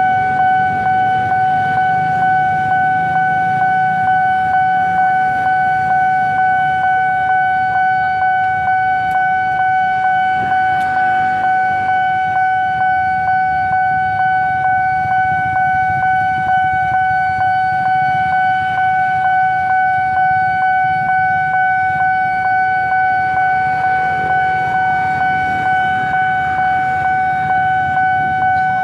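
Railway level-crossing warning alarm sounding continuously: one steady high tone with a slight regular pulse, signalling that the barrier is down for an approaching train. Motorbike engines idle underneath.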